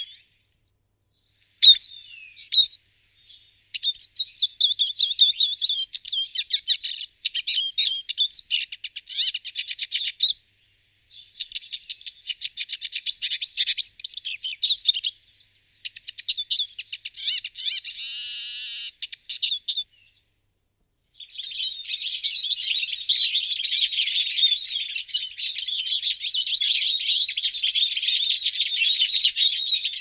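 Eurasian siskin singing: fast twittering phrases a few seconds long with short pauses between them, a buzzy drawn-out note about halfway through, then a long unbroken run of twittering in the second half.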